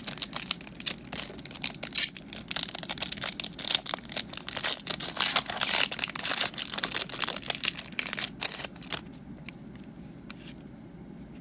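Foil Pokémon booster pack wrapper being torn open and handled, a dense crinkling and crackling with sharp clicks that dies down about nine seconds in.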